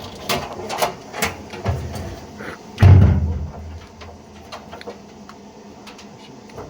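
Scattered clicks and knocks from hands-on work on the car, with one heavy thud about three seconds in.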